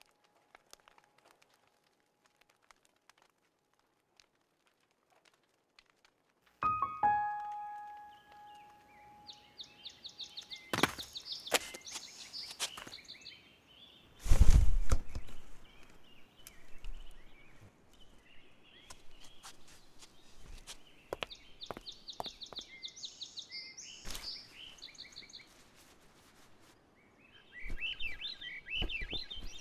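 Near silence, then a single piano note rings out and fades. After it, birds sing, with scattered sharp knocks and one heavy thump about halfway through, the loudest sound.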